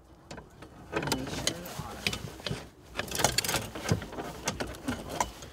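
Irregular clicks, knocks and rattles of gear being handled in an aluminium canoe, growing busier about halfway through.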